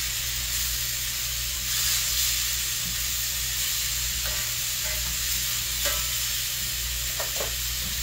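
Pork chops frying in a pan: a steady sizzle with faint irregular crackles, over a low steady hum.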